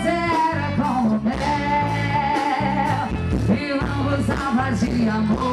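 A festa junina quadrilha song playing: a singer holding long, wavering notes over band accompaniment.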